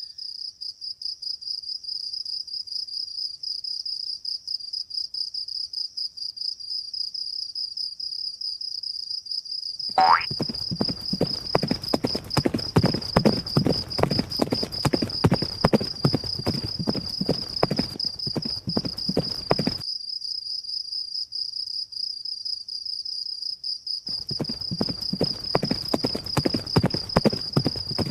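Cartoon sound effects: rapid hoofbeats of ponies galloping over a steady high-pitched trill like crickets. The trill runs alone for about ten seconds, then a quick rising whistle leads into the hoofbeats. The hoofbeats stop at about twenty seconds and start again about four seconds later.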